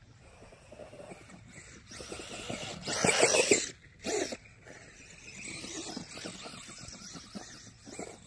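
Traxxas Bandit RC car's brushless electric motor running under throttle, its paddle tires churning through wet snow. There is a loud burst of throttle about three seconds in and a shorter one just after, then steadier running at a moderate level.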